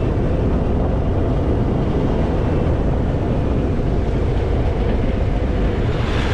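Harley-Davidson Fat Boy's V-twin engine running steadily under way, a dense continuous rumble. A brief rush of higher hiss comes near the end.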